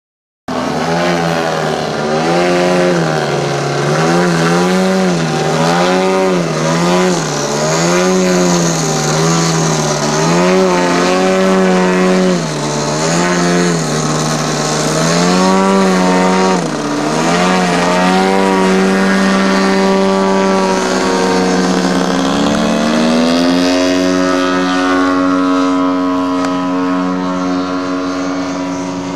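Engine and propeller of a radio-controlled Pitts biplane in aerobatic flight, starting about half a second in: the engine note swings up and down in pitch about once a second, then holds steadier and steps up to a higher pitch near the end.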